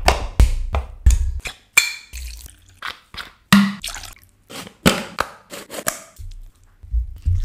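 Close-miked kitchen sounds: a knife cutting through raw chicken breast and striking a bamboo cutting board several times, then liquid pouring and dripping onto chicken pieces in a glass bowl.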